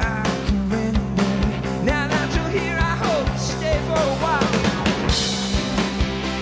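Live rock band playing: a male lead voice sings over drums with a steady beat, bass guitar and keyboard.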